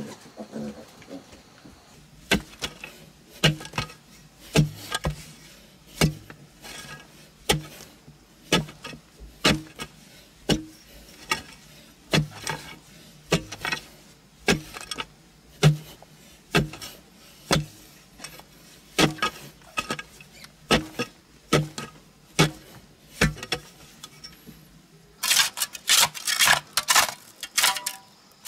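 A steel digging bar striking and breaking into compacted earth, one to two blows a second. Near the end the strokes turn quicker and sharper as a short-handled hoe chops and scrapes the loosened soil.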